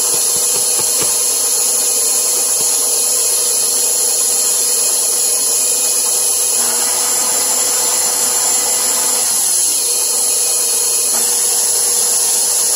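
Electric stand mixer running, its motor humming steadily as the dough hook turns a wet egg and honey mixture in a stainless steel bowl. The motor note shifts about six and a half seconds in.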